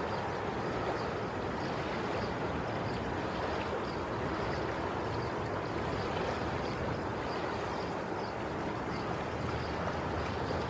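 Ocean waves washing onto the shore, a steady even rush of water without distinct breaks.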